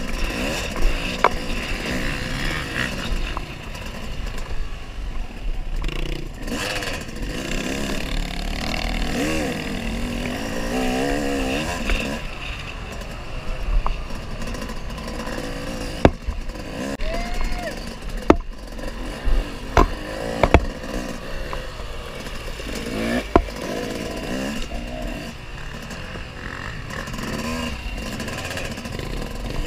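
Dirt bike engine running hard under the rider, its pitch rising and falling as the throttle opens and closes through the gears, with wind rushing over the helmet-mounted microphone. Sharp knocks and clatter come through at times, several close together in the second half.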